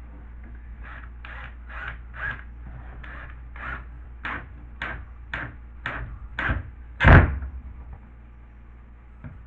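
A series of short scraping strokes on a drywall piece, about two a second, then one heavy thump about seven seconds in.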